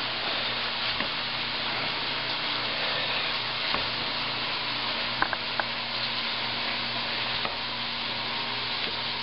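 Food frying in a hot pan: a steady sizzle, with a few light clicks of a utensil or knife.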